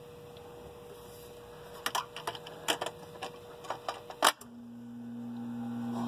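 A string of light clicks and taps, then a sharp click about four seconds in. Right after it a low electrical hum starts and grows steadily louder as the heat pump's outdoor unit powers back up.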